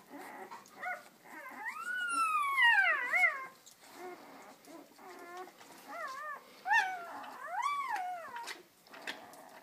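Newborn German Shepherd puppy crying: a long, high-pitched cry that rises and falls, then several shorter wavering whimpers.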